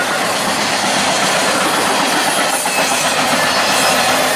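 CSX freight train's cars rolling past, a loud, steady rush of steel wheels on the rails.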